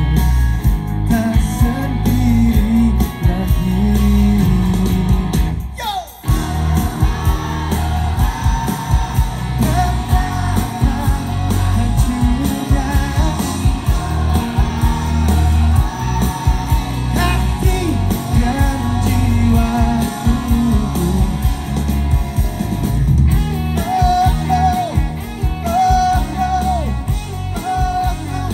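Live rock band playing, with electric guitars, drums and a male lead singer, heard from the crowd. The sound briefly cuts out about six seconds in.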